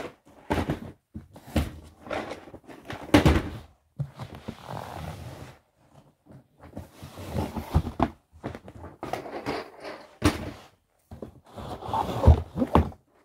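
Handling noise close to the microphone: irregular thumps, knocks and rustling with short quiet gaps, including a longer rustle around the middle.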